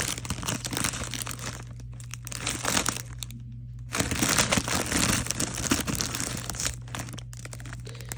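Plastic bags of diamond-painting drills crinkling as they are handled, with a short pause a little over three seconds in.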